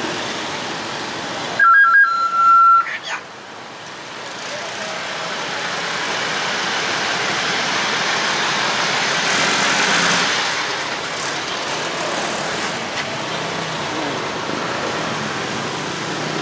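Wind rush and traffic noise while riding a scooter through town traffic, with a loud, high-pitched horn blaring briefly in two short toots about two seconds in.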